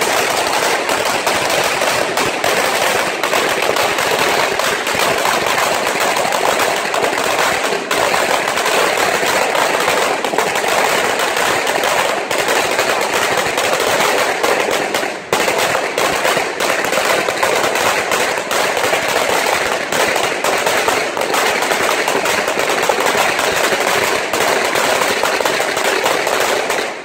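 A long string of Chinese firecrackers (鞭炮) going off in a dense, rapid, unbroken rattle of bangs, with a brief lull about halfway, stopping abruptly at the very end.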